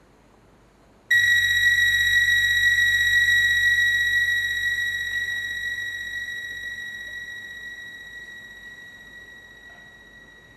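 A high, steady electronic tone with a low hum beneath it starts suddenly about a second in, then slowly fades away.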